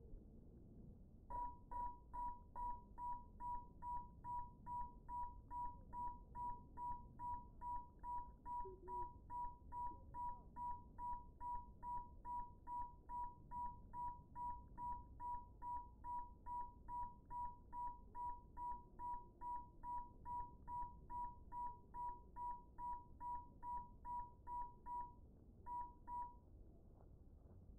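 FPV quadcopter's lost-model buzzer beeping over and over at one pitch, about two short beeps a second, locating the crashed drone in the grass. The beeping starts about a second in and stops a little before the end.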